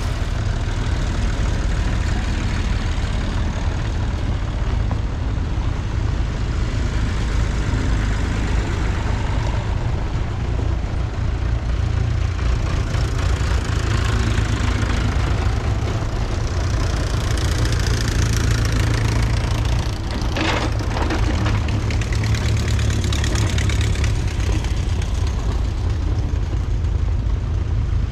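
Vintage farm tractor engines running as tractors drive past one after another on a road, with a steady low hum throughout.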